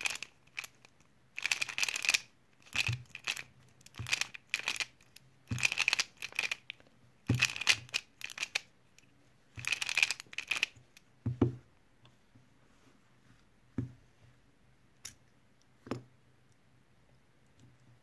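Plastic Pyraminx puzzle being turned fast by hand: bursts of clacking, scraping turns. About two-thirds of the way through, the turning stops, leaving only a few separate clicks and knocks.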